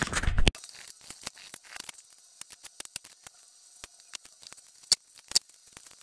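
Light clicks, ticks and rustles of hands working the thin wires of a cut USB cable apart, with a couple of sharper clicks about five seconds in.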